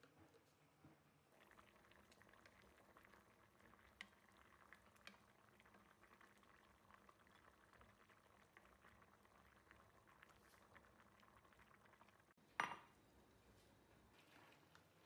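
Pot of kimchi jjigae boiling: faint, steady bubbling full of tiny pops, starting about a second in. Near the end comes one sharp knock with a short ring, the loudest sound.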